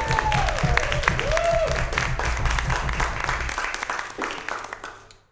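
Audience applauding at the end of a tune, with a few cheering voices in the first couple of seconds. The clapping fades out near the end.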